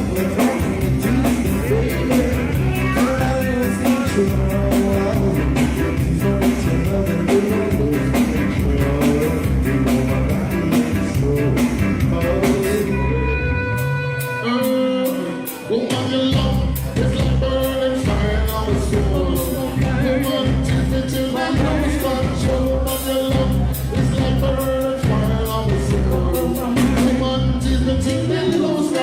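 Live reggae band playing with a singer over a steady beat. About halfway through, the bass and drums drop out for a couple of seconds, then the full band comes back in.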